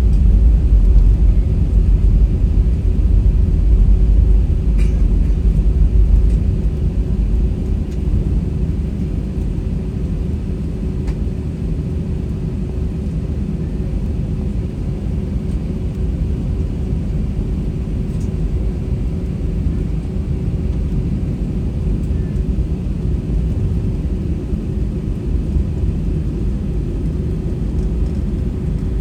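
Airbus A320-200 cabin noise from a window seat: a steady engine hum over a low rumble. The rumble eases about six seconds in.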